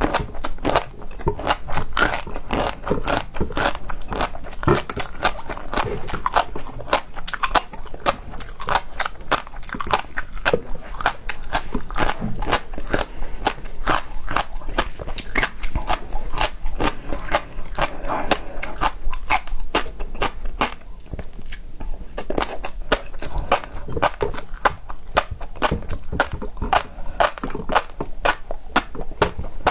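Close-miked eating of seafood: a dense, continuous run of wet clicks and crunches from biting and chewing.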